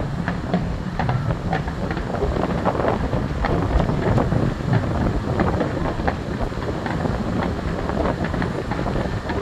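Finale barrage of aerial fireworks: many sharp bangs and crackles several times a second over an unbroken low rumble. Wind is buffeting the microphone.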